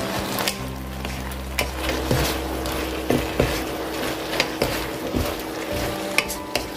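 Squid and garlic scapes in red chili sauce sizzling as they are stir-fried with a wooden spatula, which scrapes and knocks against the pan at irregular moments.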